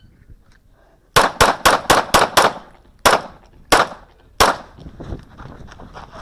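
9mm Smith & Wesson M&P 2.0 pistol firing rapidly. There are nine shots: six in quick succession at about four a second, starting about a second in, then three more spaced roughly two-thirds of a second apart.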